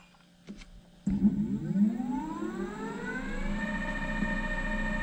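Teamgee H5 electric skateboard's newly replaced hub motor spinning the wheel freely under remote throttle. It whines, starting about a second in and rising in pitch for about two seconds, then holds a steady pitch. It runs smoothly, with no grinding.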